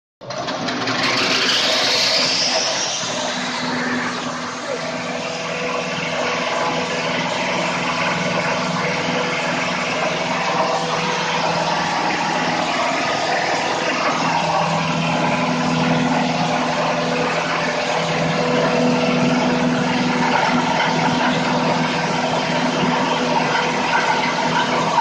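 Hammer mill with a cyclone running, a steady mechanical drone with a whine that rises in pitch over the first few seconds.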